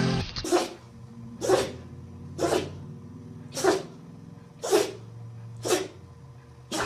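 A dog sneezing over and over, seven sharp sneezes evenly spaced about a second apart.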